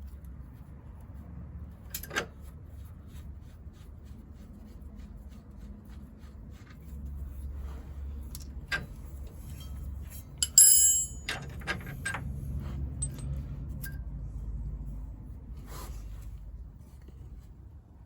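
Scattered metallic clicks and taps of tools and parts being handled while a damper is unbolted, with one louder ringing metal clink about ten and a half seconds in. A low steady rumble sits underneath.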